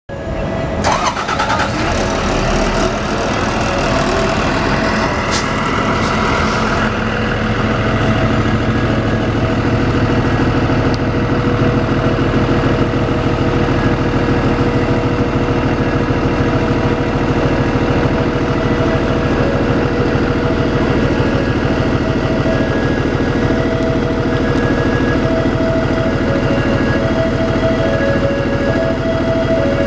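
A Cummins ISB diesel engine in a hybrid transit bus just after start-up. A high, warbling squeal sounds over it for the first several seconds and fades out around seven seconds in, then the engine settles into a steady idle.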